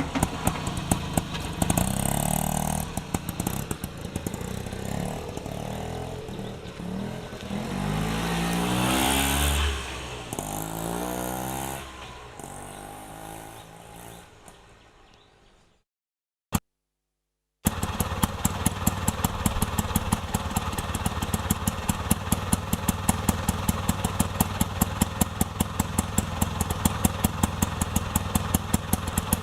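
Auto rickshaw's small engine pulling away, its pitch rising and falling several times as it revs, then fading out. After a short silence with a single click, an auto rickshaw engine runs steadily with a regular, fast chugging beat.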